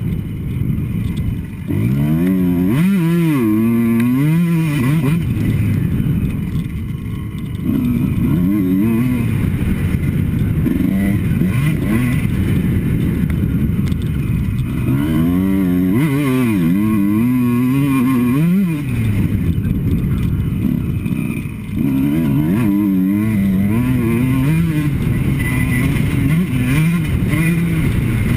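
Kawasaki KX two-stroke motocross bike engine ridden hard, its pitch rising and falling again and again as the throttle is worked, with a few short drops off the throttle. Heard from a helmet-mounted camera.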